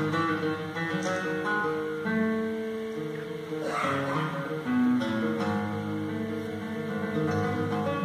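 Classical guitar and grand piano playing a duet, with notes plucked and held over a steady flowing accompaniment. There is a brief rasping burst about four seconds in.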